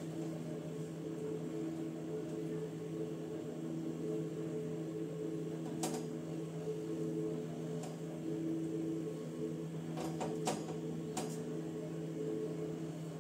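A steady machine hum of several steady tones. A few light clicks sound over it, once about six seconds in and three times near the end, as soaked vadas are set into a glass baking dish.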